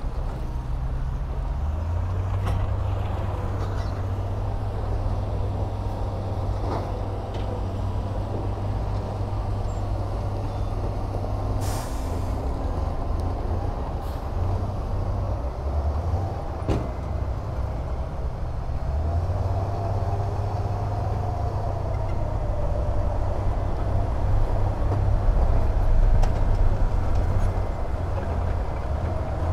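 Heavy diesel machinery, a wheel loader and ten-wheel dump trucks, running steadily with a deep engine rumble. There is a short burst of hissing air about twelve seconds in, and a few sharp clicks.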